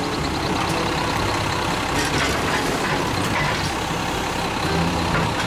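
Front-loading garbage truck's diesel engine running steadily under load as its hydraulic arm lifts a wheeled trash cart and tips it into the hopper.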